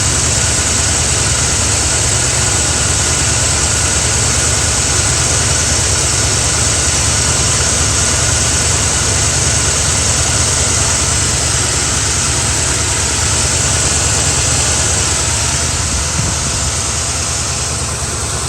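Carbureted Mustang engine idling steadily, a little jumpy and erratic: a bad spark plug wire arcing to the header is grounding out one cylinder and causing a misfire.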